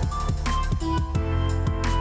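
Background music with a steady beat: a bass line, a melody and drum hits.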